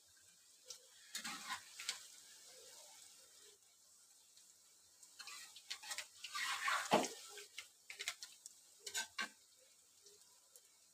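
Onion pakodas deep-frying in hot oil in a steel kadai, a faint steady sizzle, while a metal spatula scrapes and knocks against the pan as they are turned. The spatula sounds come in bursts: about a second in, a longer and louder spell from about five to seven seconds, and a few sharp knocks around nine seconds.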